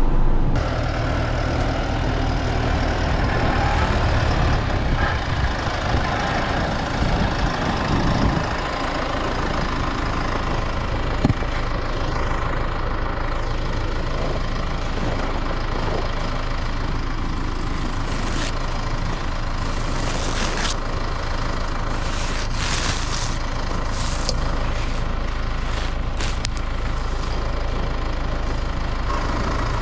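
A heavy vehicle engine running steadily, a continuous low hum, with short bursts of higher-pitched noise over the second half.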